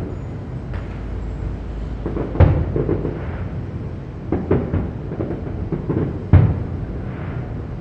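Aerial fireworks bursting: a series of booms about two seconds apart, the strongest three about two and a half, four and a half and six and a half seconds in, with smaller pops and a low rumble between.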